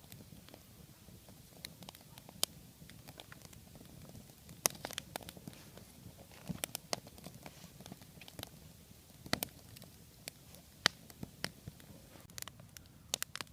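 Campfire of stacked logs burning, with irregular sharp crackles and pops from the wood; the fire has caught well.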